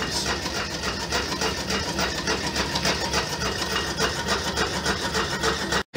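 Home-built coal-fired Stirling engine running at a fair speed and driving a belted centrifugal water pump: a steady, rapid mechanical beat. It is a running-in run to bed in freshly refitted leather piston seals.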